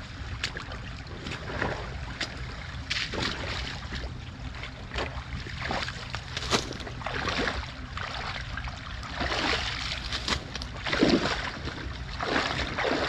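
Rubber boots wading and kicking through shallow creek water: irregular sloshing splashes, several a few seconds apart, with flowing water.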